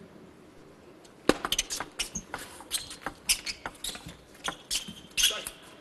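Table tennis rally: the ball knocking off the rackets and the table in quick, sharp clicks, starting about a second in and running on at a few hits a second.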